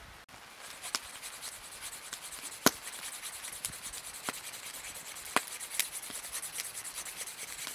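Knife blade shaving thin curls off a wooden stick to make a feather stick for fire lighting: a steady scraping rasp with a few sharp clicks, the loudest nearly three seconds in.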